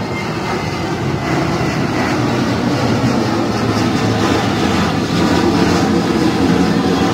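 Twin jet engines of a Boeing 737 airliner at climb thrust shortly after takeoff: a steady, loud rumble that swells slowly as the jet passes overhead.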